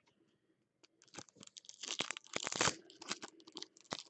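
Bowman Chrome card pack wrapper being torn open and crinkled by hand: a run of irregular crackles that starts about a second in and is loudest a little past the middle.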